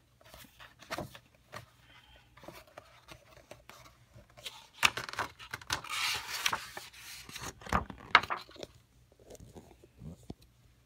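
Paper pages of a coloring book being turned by hand: soft rubbing and light handling clicks, then a louder rustle and flap of paper from about five to eight seconds in.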